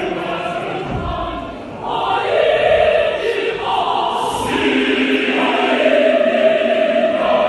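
Large mixed choir singing a traditional South African choral piece, many voices in sustained chords; the sound dips briefly just before two seconds in, then swells louder.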